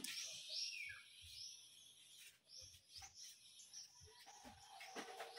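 Faint birds chirping in the background: a string of short, high calls that drop in pitch, close together at first and thinning out after a couple of seconds.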